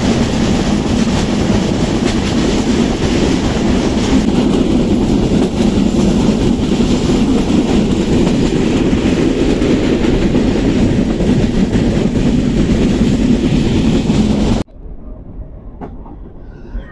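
Passenger train running along the line, a steady loud rumble of wheels on rails with clickety-clack from the carriage. It cuts off abruptly near the end, leaving a much quieter background.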